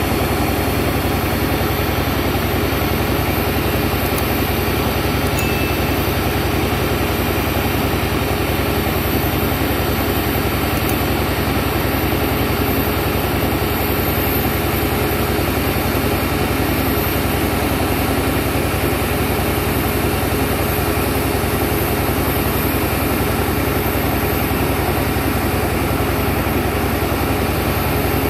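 Boeing 737 airliner's jet engines running at idle thrust as it taxis, a loud steady engine noise that holds unchanged throughout.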